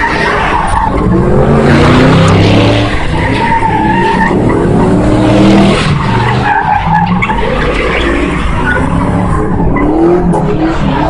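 Cars drifting and spinning donuts on asphalt: tyres screeching continuously while the engines rev up and down again and again at high throttle.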